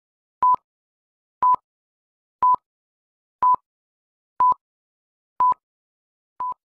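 Film-leader countdown beeps: a short, high, single-pitch beep once a second, one for each number counted down, with silence between them. The last beep, near the end, is quieter and shorter.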